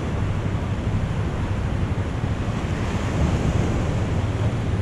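Ocean surf breaking and washing onto a rocky black sand shore, swelling slightly about three seconds in, with wind buffeting the microphone as a steady low rumble.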